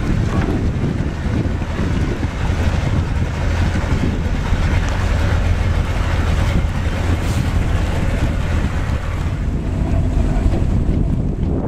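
Wind buffeting the microphone: a steady low rumble with a hiss of moving air above it.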